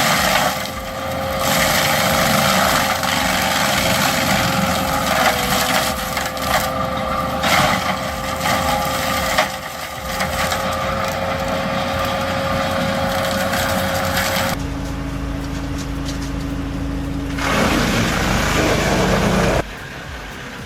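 Wood chipper running with a steady whine while branches are fed in and chipped with cracking and crunching. About two-thirds of the way through the sound cuts abruptly to a lower, steady machine hum, and changes again twice near the end.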